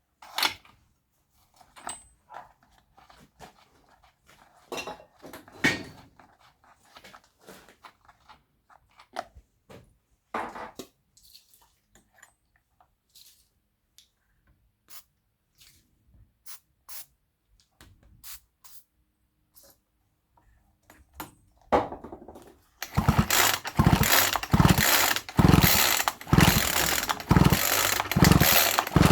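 Scattered clicks and knocks of a cheap 37cc chainsaw being handled and worked on. Near the end a loud mechanical ratcheting rattle starts, pulsing about twice a second.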